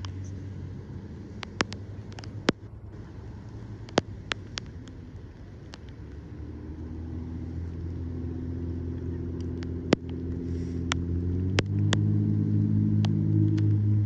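A motor vehicle's engine hum grows steadily louder from about halfway through and steps up again near the end. Scattered sharp ticks sound throughout.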